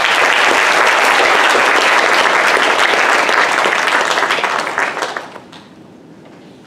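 Audience applauding: many hands clapping, loud and steady for about five seconds, then dying away.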